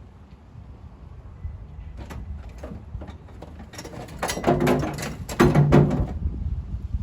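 Aluminum sheeting scraping and rattling as it is dragged over the truck bed: two loud, scratchy scrapes a little over half a second each, about four and a half and five and a half seconds in, over a low steady rumble.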